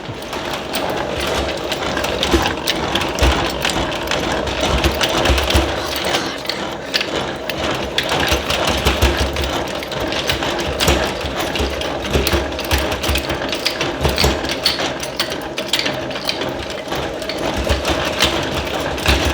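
Honey extractor spinning frames of honeycomb, giving a steady mechanical rattle with fast, dense clicking.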